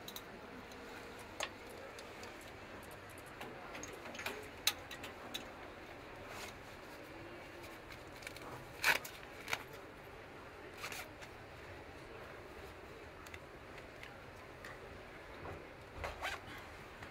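Outdoor city ambience: a steady background hum broken by irregular sharp clicks and taps, the loudest about nine seconds in.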